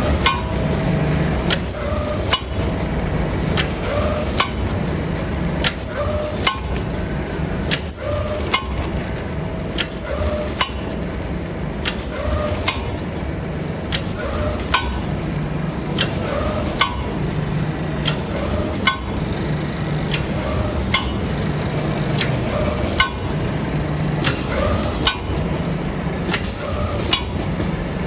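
Automatic flour-packing machine (vertical form-fill-seal with auger filler) running at about 28 packs a minute: a repeating cycle of sharp clicks and clacks about every two seconds, over a machine hum that swells and drops with each cycle.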